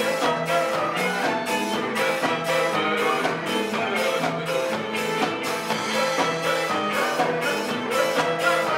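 Folk music ensemble playing a tune with several instruments over a steady, even drum beat.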